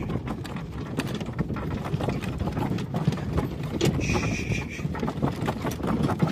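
Horses' hooves clopping irregularly under riders, with wind rumbling on the microphone. A short, high steady tone sounds about four seconds in.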